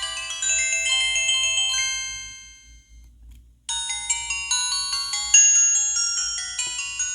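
Ringtones on a Samsung SGH-T629 phone: a melody of high, bell-like notes fades out about two seconds in, and after about a second of near silence the next ringtone starts, a quick run of chiming notes.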